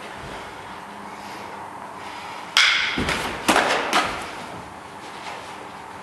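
A quick burst of knocks and thuds from close-range knife sparring, blows landing as the two fighters clinch. The sharpest, loudest knock comes about two and a half seconds in, followed by several more over the next second and a half.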